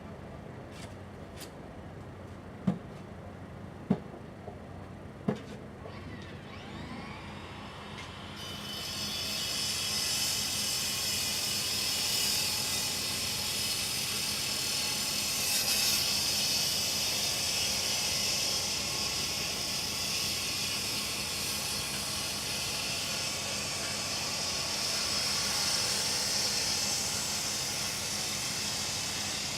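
Three sharp knocks from the track work, then, about eight seconds in, a loud steady hiss from work equipment starts and keeps going.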